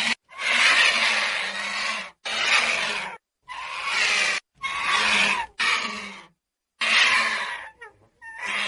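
Vulture calls: a run of about eight harsh, hissing bursts, each half a second to a little over a second long, with short silences between them. These are the hisses and grunts of a vulture, a bird without a true song.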